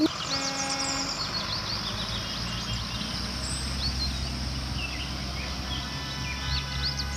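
School bus engines running with a steady low rumble as the buses pull out, with birds chirping now and then.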